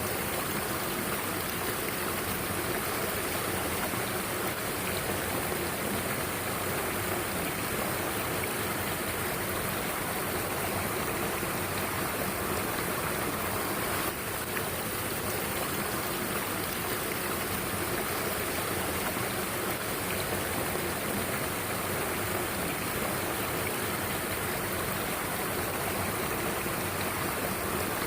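Mountain stream water flowing steadily, a constant rushing with a brief dip about halfway through.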